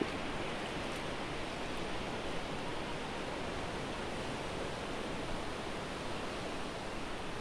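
Steady rushing noise of sea waves and surf, with no distinct events apart from a short click at the very start.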